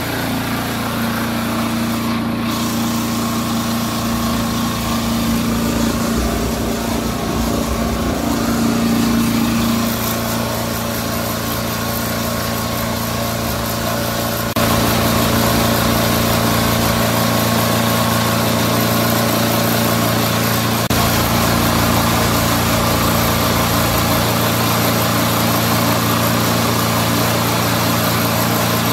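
Diesel engine of a hot-water pressure washer running steadily, just after being started; the sound steps up louder about halfway through and holds there.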